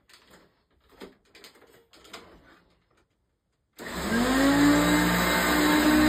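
A few faint clicks, then about four seconds in a Hoover Concept One upright vacuum cleaner is switched on. Its motor spins up with a short rising whine and settles into a loud, steady run.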